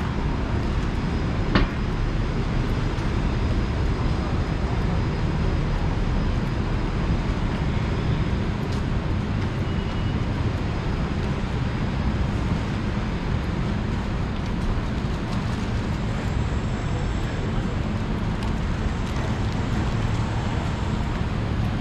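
City street ambience: steady road traffic noise of passing vehicles, with one sharp click about a second and a half in.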